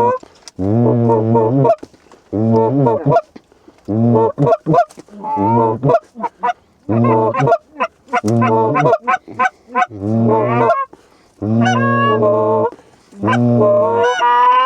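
Canada goose calls blown in a rapid string of honks and clucks, about a dozen calls, each a low moan breaking sharply upward in pitch.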